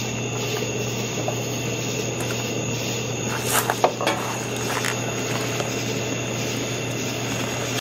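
Steady mechanical drone: a constant low hum with even hiss and a couple of faint high tones, with a few faint clicks and knocks a little past halfway.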